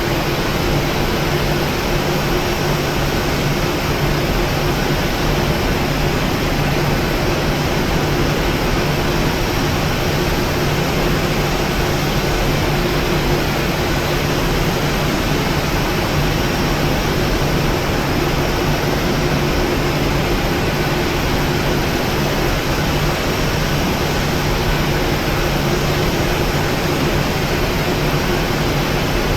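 Steady cabin noise inside a Boeing 737-900 on the ground after landing: its CFM56 jet engines running at idle under an even rush of air-conditioning hiss, with a constant low hum and a higher hum that rises slightly at the start.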